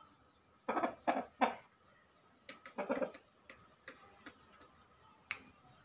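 A game rooster gives three short throaty clucks in quick succession, then a few more, followed by several sharp clicks, the sharpest near the end.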